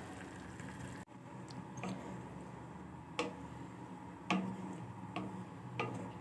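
A spoon clicking now and then against the cooking pot while rice, peas and potatoes are stirred: about five faint, separate clicks over a low steady background.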